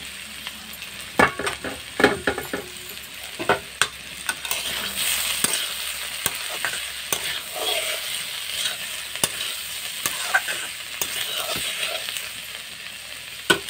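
Cauliflower frying in a steel kadai with a steady sizzle while a spatula stirs it, knocking and scraping against the pan at irregular intervals.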